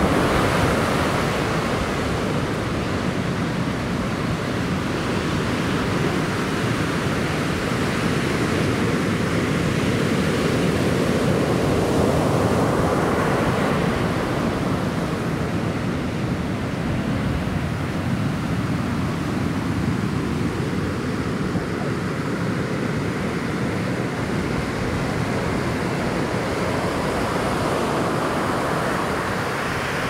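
Ocean surf: waves breaking and washing ashore in a continuous rush of white water, swelling a little about twelve seconds in.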